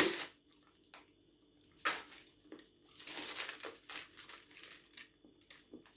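Crinkling of a chocolate bar's wrapper being handled: irregular soft rustles and crackles, with a few sharper ticks.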